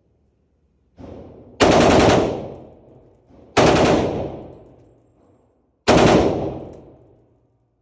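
Three single rifle shots fired on semi-automatic, about two seconds apart, each cracking sharply and trailing off in a long echo; a fainter shot comes about a second in, just before the first loud one.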